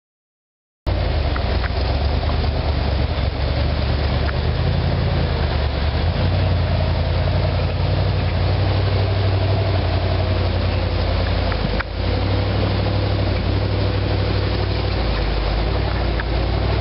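A rock crawler buggy's engine running steadily at low revs. The sound starts suddenly about a second in, with rushing creek water beneath it.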